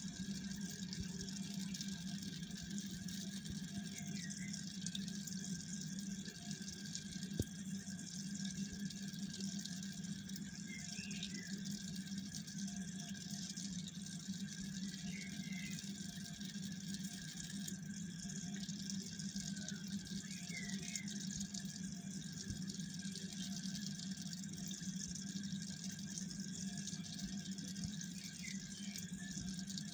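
Steady low hum with an even hiss, typical of running reef-aquarium pumps and moving water, with a few faint short chirps every few seconds.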